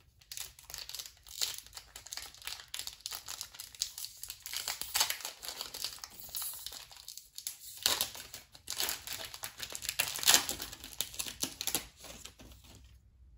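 Trading-card booster pack wrapper being torn open and crinkled by hand, a dense, continuous crackling that stops shortly before the end.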